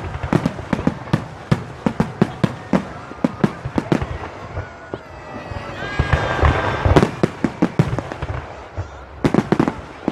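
Fireworks display: rapid bangs and booms, several a second, with a louder burst of dense crackling about six seconds in and a short lull near nine seconds before the bangs resume.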